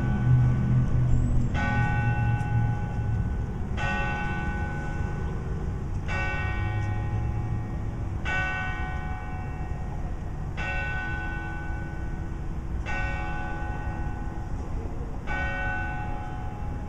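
Clock-tower bell of Old Central High School striking the hour for ten o'clock: seven slow single strokes about every two and a quarter seconds, each ringing on and fading before the next. A low rumble runs underneath.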